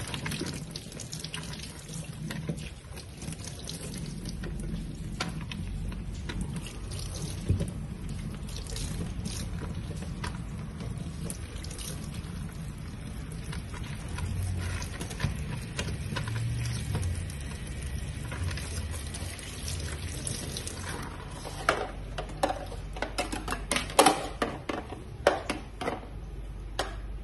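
Kitchen tap running into a stainless steel sink as food is rinsed under the stream. Near the end it gives way to quick, irregular knocks of a knife cutting on a cutting board.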